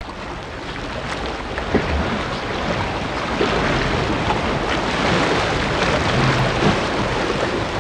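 Steady wash of open-sea waves and wind. It swells over the first couple of seconds, then holds.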